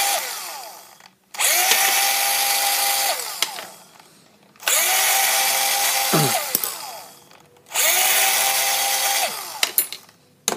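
Power drill backing out the screws of a cast-aluminium conduit fitting. It runs in short steady spurts: the end of one winding down, then three runs of about two seconds each, every one trailing off as the trigger is let go.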